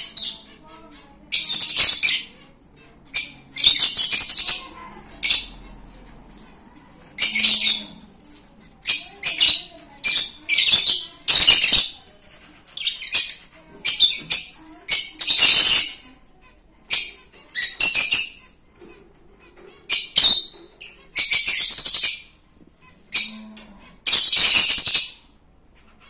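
Lovebirds giving shrill, harsh screeching calls in repeated bursts, each up to about a second long, with short pauses between.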